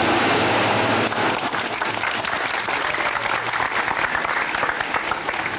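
A crowd clapping and applauding, the dense clapping taking hold about a second in.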